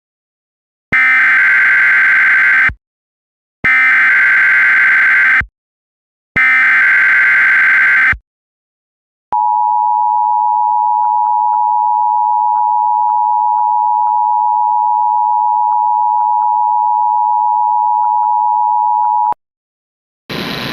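Emergency Alert System alert opening: three bursts of SAME header data, each about two seconds long, then a steady two-tone EAS attention signal held for about ten seconds.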